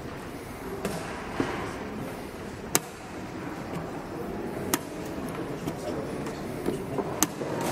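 Wooden chess pieces knocked down on the board and digital chess clock buttons pressed in blitz play: several sharp clicks a second or two apart, over steady room noise.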